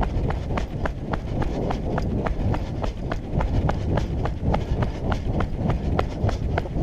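Running footsteps on asphalt, picked up by a body-worn camera: evenly paced footfalls about three a second over a steady low rumble.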